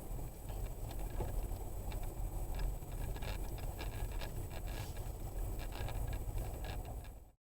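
Car driving, as picked up by a dashcam microphone: a steady low road and engine rumble with small scattered rattles and ticks. It cuts off abruptly near the end.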